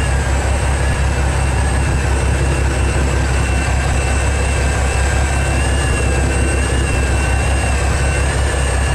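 Fishing boat's engine running steadily: a loud, constant low drone with a faint, steady whine above it.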